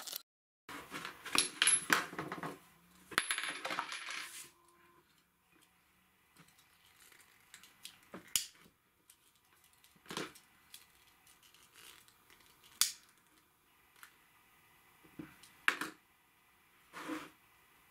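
Small metal, glass and wooden parts of a handmade birch oil lantern clinking and knocking as it is put together: a rattling clatter in the first few seconds, then a handful of separate clicks and taps.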